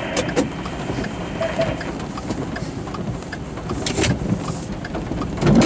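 Heavy rain on a stopped vehicle's roof and windshield: a steady hiss with scattered drop impacts, and a louder burst near the end.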